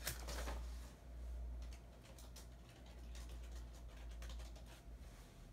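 Typing on a computer keyboard: a louder noise right at the start, then a run of light, quick key clicks.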